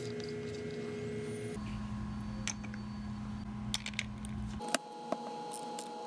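Light clicks and taps of a nut driver turning a screw in the body of an S&S Super E carburetor, a few separate clicks over a steady background hum that shifts in pitch twice.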